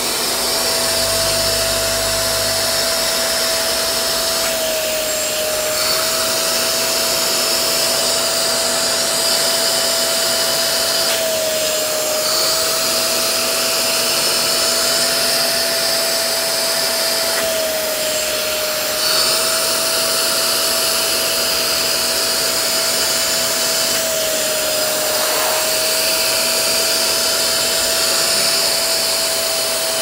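Vacuum motor running steadily during wet carpet extraction, sucking up water. Its steady whine dips briefly in pitch about every six to seven seconds, over a loud airy hiss.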